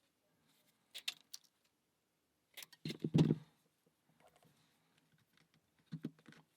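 Plywood parts of a wooden mechanical puzzle lock clicking and knocking together as they are handled and fitted: a few light clicks about a second in, a louder cluster of knocks around three seconds, and one more knock near the end.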